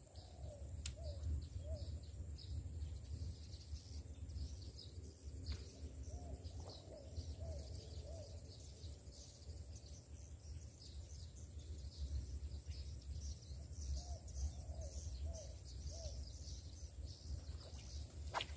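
Birds chirping and calling in marshland, with a lower call of three or four notes repeated three times. Under them runs a low steady rumble, and a thin high steady tone stops about fifteen seconds in.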